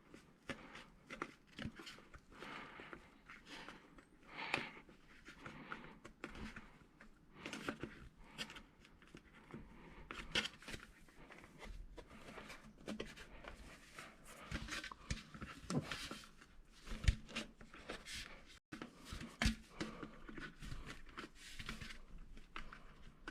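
Rubber grommet being worked by hand into the hole in a carbon fiber air intake tube: scattered soft clicks, rubs and scrapes of rubber on the tube, with a few sharper knocks.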